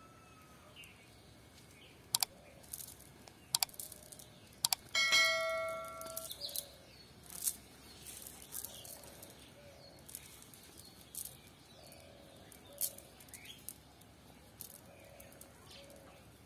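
A single bell-like metallic ding about five seconds in that rings for about a second, among a few sharp clicks. The rest is quiet outdoor ambience.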